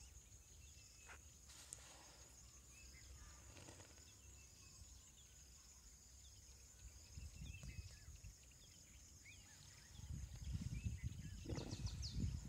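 Steady high insect chirring with a few faint bird chirps over it. About ten seconds in, hippos in the lagoon start a low, pulsing grunting series that becomes the loudest sound.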